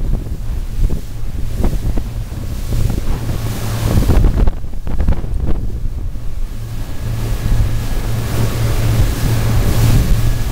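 Bluewater 2550 center-console boat running at speed on open sea: wind buffeting the microphone over the rush of the churning wake, with a steady low engine drone beneath.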